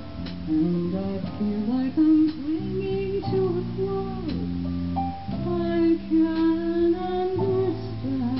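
Small live band playing: a woman singing into a microphone over keyboard, drums and guitar, in long held notes.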